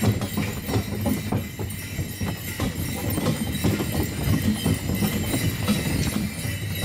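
Horse-drawn sleigh on the move: horses' hooves clip-clopping on a packed-snow track in a quick, uneven run of knocks, with the steady rattle and rush of the sleigh underneath.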